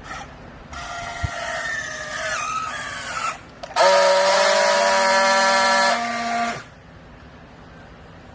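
Vertical hydraulic baling press's pump working: a whine that slides down in pitch for a couple of seconds, then a louder steady whine for about three seconds that stops abruptly.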